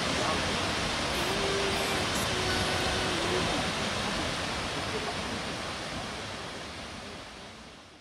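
Oshiraji Falls: a waterfall pouring into its plunge pool with a steady rush, fading out over the last few seconds.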